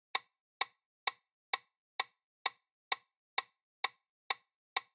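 Quiz countdown-timer sound effect: short, sharp clock-like ticks, evenly spaced at about two a second, with silence between them.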